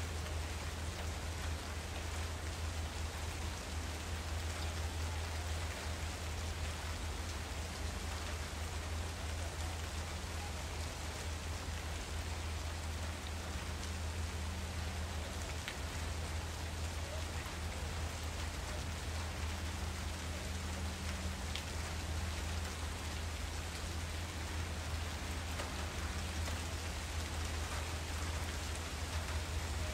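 Steady, even hiss over a low hum, with no distinct strokes or knocks.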